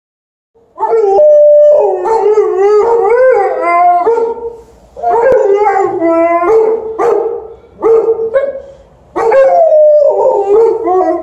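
An Alaskan Malamute and a golden retriever howling and barking together, two voices overlapping, starting about a second in: long wavering howls broken by short sharp barks. They are demanding to be taken for a walk.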